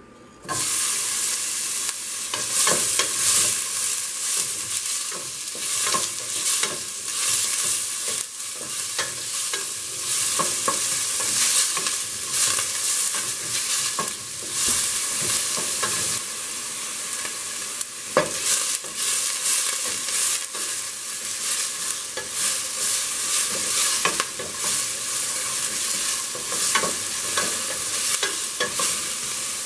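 Chopped onion hitting hot olive oil in a stainless steel pot, the sizzle starting abruptly about half a second in, then frying steadily while a wooden spoon stirs and scrapes the onion around the pot.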